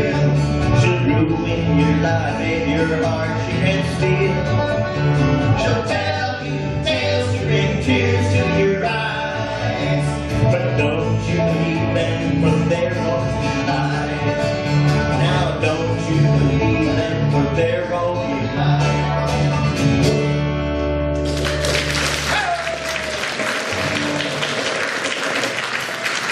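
Bluegrass trio of five-string banjo, acoustic guitar and upright bass playing live, with voices singing, closing on a held final chord about 21 seconds in. Audience applause follows.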